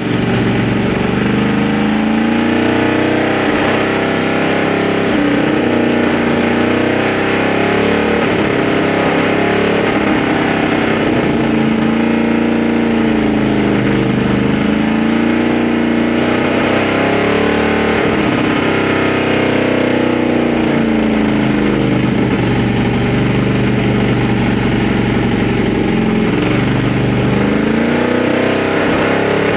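Supercharged 289 V8 engine of a 1958 Packard Hawk running with the hood open, its engine speed sinking and climbing again in slow swells every few seconds.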